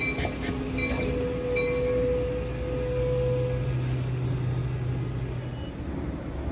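Amtrak Pacific Surfliner bilevel passenger cars rolling slowly past the platform, a steady rumble with a sustained hum. Light clicks come about once a second in the first couple of seconds.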